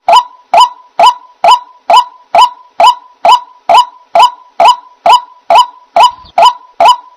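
White-breasted waterhen giving its loud honking call over and over, evenly spaced at about two calls a second.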